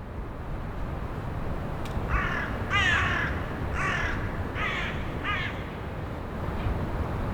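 A crow cawing: five harsh caws in quick succession over a steady low rumble.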